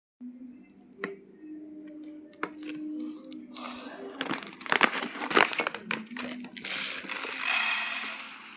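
Crinkling and crackling as raw basmati rice and its packet are handled, the crackles coming thick about four seconds in, then a loud steady rush of rattling grains for about a second and a half near the end.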